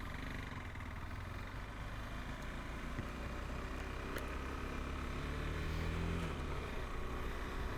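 KTM 390 Adventure's single-cylinder engine running while the bike is ridden, its pitch rising for a moment about five seconds in as it picks up speed.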